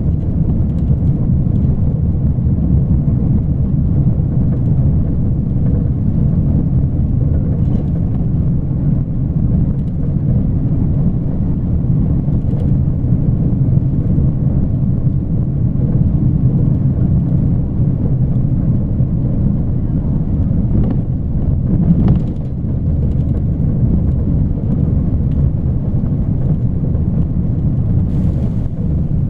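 Steady low rumble of a moving vehicle, road and wind noise buffeting the microphone, with a brief knock about two-thirds of the way through.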